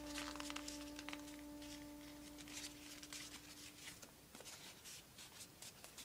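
Faint rustling and crinkling of plain printer paper as it is folded and pressed by hand, in a string of short scratchy rustles. A held chord of background music fades out about halfway through.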